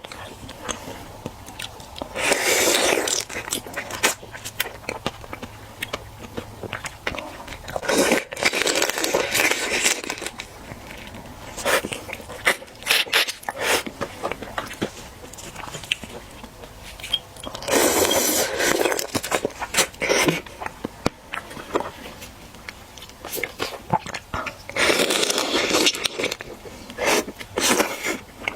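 Close-up eating sounds of marinated raw crab: crunching, biting and wet chewing, with many small clicks and four louder stretches of about a second or two each.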